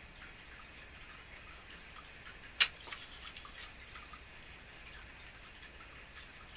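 Quiet room tone with faint, irregular small ticks and one sharp click, with a brief high ring, about two and a half seconds in.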